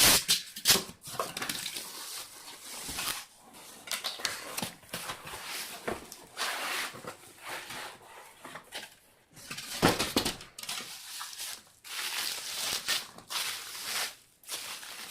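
Packaging being handled and opened by hand: irregular rustling with scattered clicks and knocks, starting and stopping in short spells.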